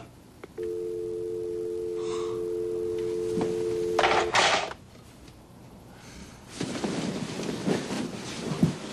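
Telephone dial tone, a steady two-note hum from the corded handset once the caller has hung up. Just past four seconds in it cuts off with a loud clatter as the handset is put down on its base, followed by rustling of bedclothes as he gets up.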